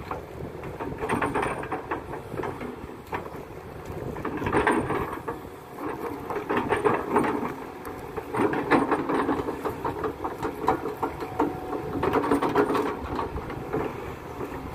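Kato HD512E hydraulic excavator working: the engine runs steadily, swelling under load every couple of seconds as the boom and bucket move, with dense clanking and rattling from the bucket linkage and tracks.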